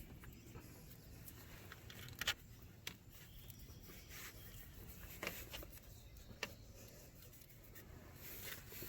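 Faint, scattered clicks and light taps from hands handling the new wheel hub and parts during the installation, over a low steady background.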